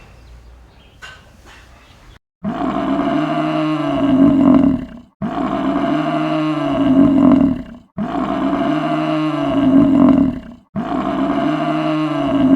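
Buffalo calling with a deep, drawn-out bellow, the same call repeated four times about every 2.7 s, each cut off abruptly.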